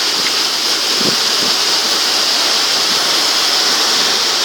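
Very heavy rain pouring down with wind: a steady, dense hiss that doesn't let up.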